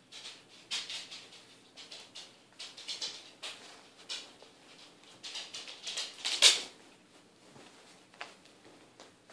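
Irregular rustling and scuffling of a fabric catnip blanket as a cat grabs, kicks and rolls on it against a sofa cushion, with the loudest rustle about six and a half seconds in. It quiets over the last couple of seconds.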